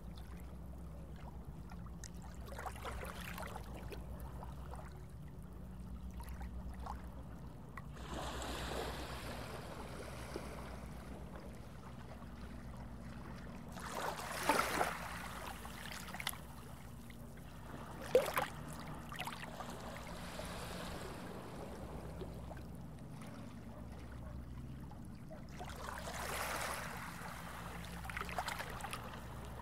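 Water ambience: a steady low hum under soft trickling water, with louder swells of water noise now and then, the sharpest about halfway through and again a few seconds later.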